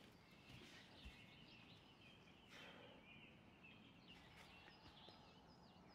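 Faint birdsong: high chirps and short twittering calls from small birds, busier toward the end, over a quiet outdoor background.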